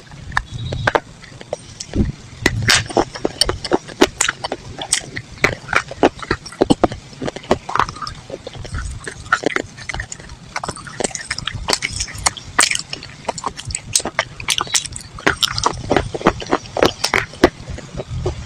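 Close-up crunching of chalk and clay: many sharp, irregular crackles and snaps that come in quick clusters, over dull low thuds.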